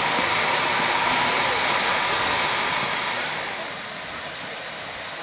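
Steam hissing loudly from Durango & Silverton K-36 steam locomotive No. 482, a steady rushing hiss that drops in level about three and a half seconds in. Faint voices of onlookers sit underneath.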